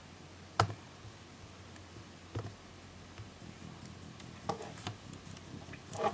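A few scattered knocks and clicks, about five, the first the loudest, over a faint steady hum.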